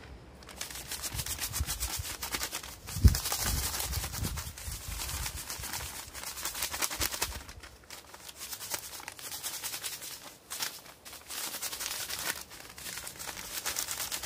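Plastic breadcrumb packet crinkling as it is shaken and rubbed to coat the fish pieces inside with crumbs, with a dull thump about three seconds in.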